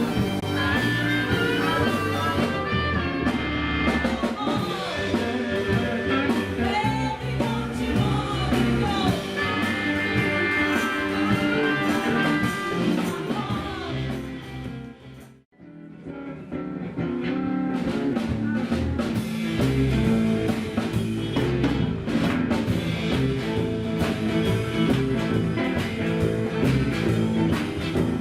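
Music, a song with guitar. It fades out about halfway through, and another piece starts straight after.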